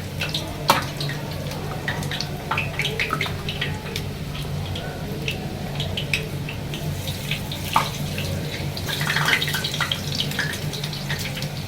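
Scotch eggs deep-frying in hot oil: a steady sizzle with many small crackles and pops, over a steady low hum.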